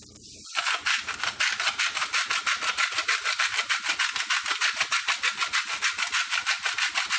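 Seasoning shaker shaken rapidly by hand, the grains rattling inside in a fast, even rhythm of many short shakes that begins about half a second in.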